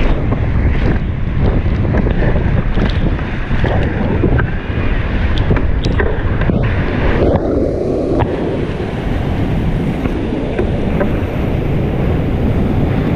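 Whitewater rushing and churning around a kayak running a creek rapid, with a heavy low rumble from water and wind buffeting the microphone. A few sharp splashes of paddle strokes cut through.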